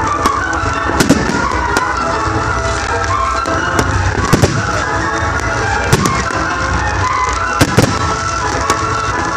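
Aerial fireworks shells bursting in the sky, about ten sharp bangs scattered irregularly through, the loudest a close pair near the end. Steady background music plays under them throughout.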